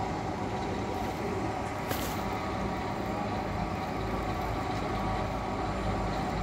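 Boat-hoist travel lift running steadily as it lowers a motor cruiser into the water: a continuous engine-and-winch drone with several steady tones. A brief hiss about two seconds in.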